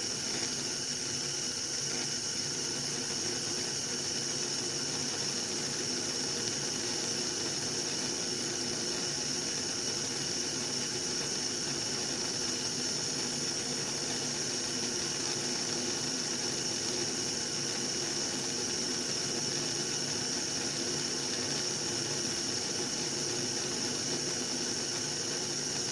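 Kitchen hob running with a steady hiss and a thin high tone, unchanging throughout.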